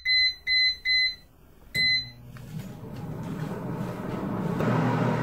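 Philco PFR2200P air fryer oven's touch panel beeping: three quick short beeps as the timer is set, then a fourth about two seconds in. After that the oven's fan starts, a low whirr with a hum that builds up steadily.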